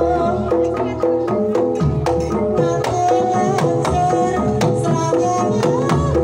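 Banyumasan gamelan music for tayub: a kendang hand drum playing quick strokes over a steady ringing melody from struck bar instruments.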